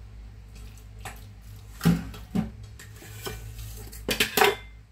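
Metal fork clinking and scraping against a ceramic bowl and a stainless steel mixing bowl while minced shrimp is scraped out and stirred into minced meat. A few sharp clinks, the loudest about two seconds in and a quick pair near the end.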